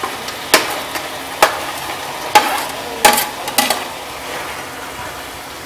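Steel spoon clinking and scraping against the kadhai and plate about five times as mashed brinjal is pushed into the pan, over a steady low sizzle of the tomato and potato mixture frying in oil.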